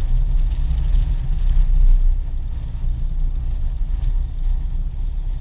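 Wind buffeting the microphone: a steady low rumble that swells and eases.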